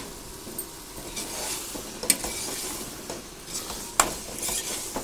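Sliced mushrooms sizzling in masala in an aluminium pressure cooker, stirred with a metal spoon that scrapes the pot. The spoon knocks sharply against the pot about two seconds in and again near the end.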